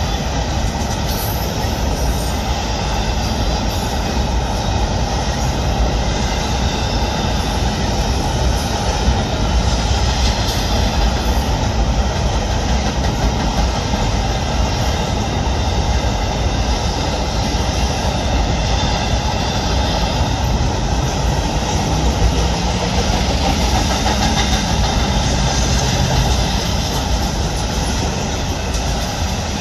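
Freight cars of a Florida East Coast Railway train rolling steadily across a trestle bridge: a continuous loud rolling noise of wheels on rail, heaviest in the low end.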